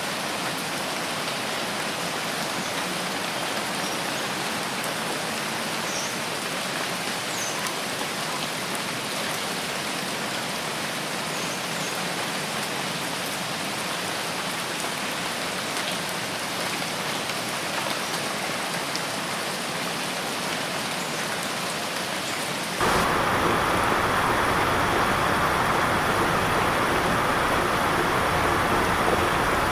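Steady rain falling as an even hiss with scattered drop patter. About 23 seconds in it cuts abruptly to a louder, deeper rushing stretch of rain.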